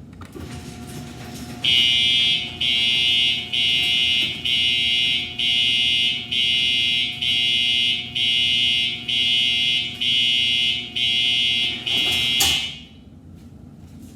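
Electronic buzzer sounding in about a dozen evenly repeated pulses, each just under a second long, then stopping with a short click.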